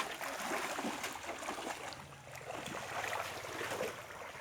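Irregular splashing and sloshing of shallow pond water.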